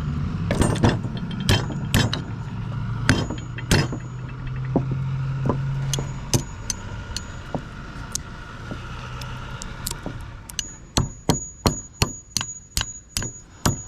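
Hammer blows on the metal of an electric motor being broken down for scrap: a few scattered strikes at first, then from about ten seconds in a quick regular run of ringing blows, about three a second.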